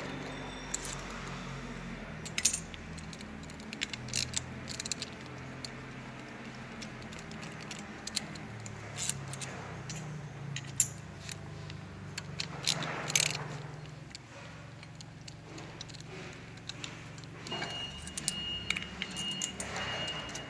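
Scattered metallic clinks and clicks of a socket wrench and loose steel bolts being handled while the bearing cap bolts come off an electric motor's end bell, over a low steady hum. A faint high steady tone enters near the end.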